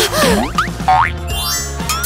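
Cartoon sound effects over background music: several quick sliding pitch glides, mostly rising, like a slide whistle or spring.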